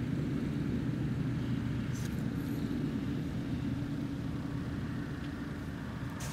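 A steady low rumble with a constant hum, and one faint click about two seconds in.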